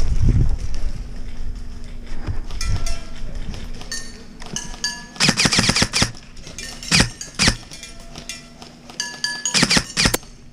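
Airsoft guns firing in short, rapid bursts, several times over; the longest bursts come about halfway through and near the end. Low thumps of movement can be heard in the first second.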